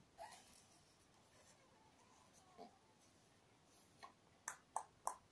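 Near silence, room tone only, with about four faint, sharp clicks close together near the end.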